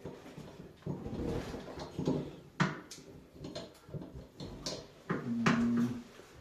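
Allen key and metal faucet parts being handled: irregular clicks, knocks and rustling, with a brief low hum-like tone about five seconds in.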